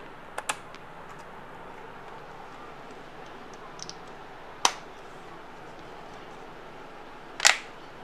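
Plastic clips of an MSI GP65 Leopard laptop's bottom cover snapping into place as the cover is pressed shut: two quick clicks about half a second in, a sharper snap just past halfway, and the loudest snap near the end.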